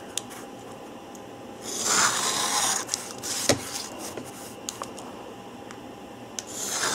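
Utility knife drawn along a steel ruler, slicing through printed paper: one rasping cut about two seconds in and another starting near the end, with a few light clicks and taps as the ruler and paper are shifted between cuts.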